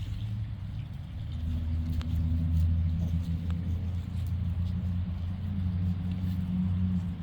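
Low, steady hum of a motor vehicle's engine running nearby. It grows louder about a second in and eases off near the end.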